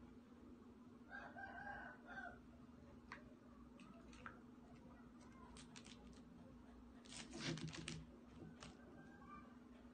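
Quiet room. A faint pitched animal call, about a second long, comes about a second in. Scattered light ticks and taps follow, loudest in a brief cluster near the end as a small hand reaches a wrapped chocolate bar on the floor.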